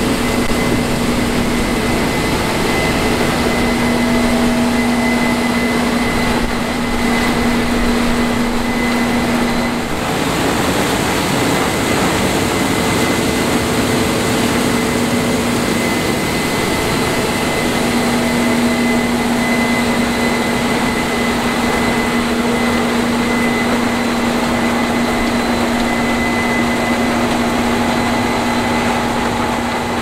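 Case IH 7250 Axial-Flow combine harvesting corn, its 11.1-litre FPT diesel engine and threshing machinery running steadily under load: a loud, even machine noise with a steady low drone and a high whine above it.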